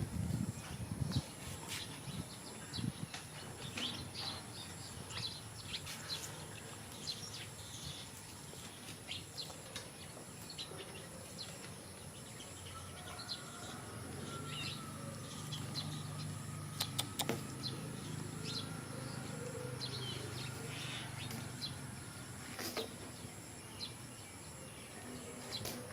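Outdoor ambience of birds chirping, short scattered calls throughout, with a low steady hum for several seconds around the middle.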